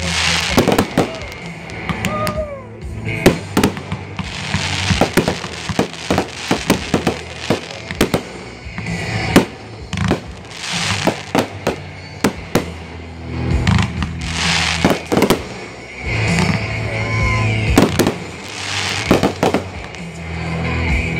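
Fireworks going off in a rapid string of sharp bangs and pops as comets and aerial shells launch and burst, with spells of hissing between them. Music plays steadily underneath.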